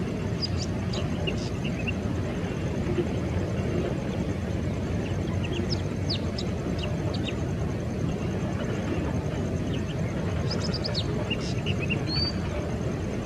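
Distant jet engines of an Airbus A320-214 (CFM56-5B turbofans) running as a steady low rumble while the airliner lines up on the runway. Small birds chirp in short bursts over it: near the start, around the middle and near the end.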